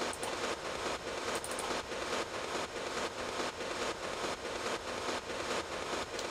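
Soloed long-reverb wash from a techno top loop, chopped into a rapid, even pulse by self-sidechained ducking in a Chop 'n' Chain rack in Ableton Live: a dense, hissy texture that pumps in time with the beat.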